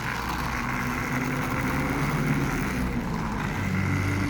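Motorized toy train locomotive running along its track, the small motor and gears giving a steady whir whose pitch shifts slightly.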